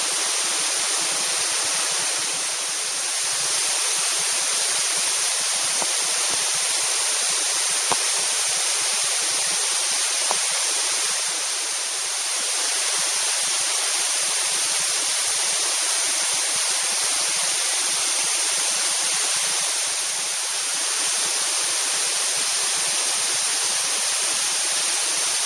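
Tiered cascade waterfall pouring, a steady dense hiss of falling water with a few brief slight dips in loudness.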